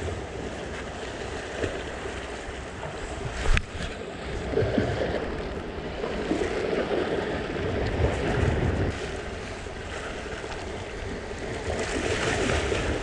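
Sea waves washing against a rocky shore, with wind buffeting the microphone. A single sharp click about three and a half seconds in.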